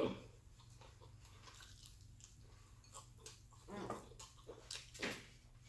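Faint chewing and soft mouth smacks while eating fried chicken, a few brief ones scattered through the second half.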